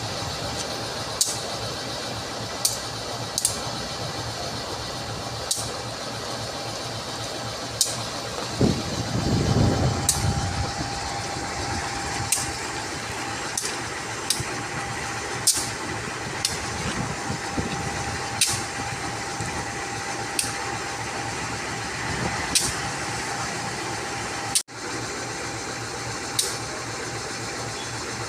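Diesel locomotive engine running steadily at idle, with sharp clicks every second or two and a brief low rumble about nine seconds in.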